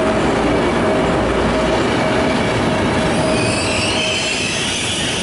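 Trenitalia Intercity coaches rolling past on the platform track: a loud, steady rumble of wheels on rail. High-pitched wheel squeal rises in about three seconds in.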